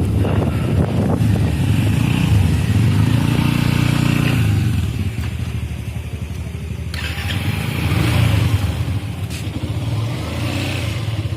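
Motorcycle engine running, louder about two to four seconds in, easing off near five seconds, then picking up again around eight seconds.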